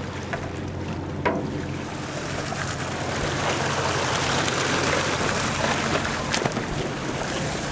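Wind and sea water washing along a sportfishing boat's hull, growing louder in the middle, with a yellowfin tuna splashing at the side as it is gaffed.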